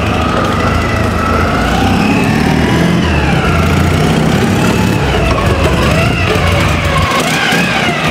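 Soviet M-72 motorcycle's flat-twin engine running as the sidecar outfit is ridden along at low speed.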